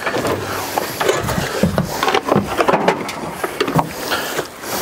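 Irregular knocking and clattering of hard objects being handled and moved about.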